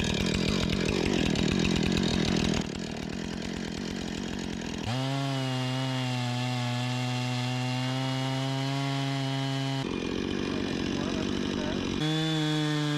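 Husqvarna 460 Rancher two-stroke chainsaw running at high revs in a portable chainsaw mill, ripping lengthwise through a cedar log. The pitch holds steady for several seconds at a time, and the sound shifts abruptly a few times.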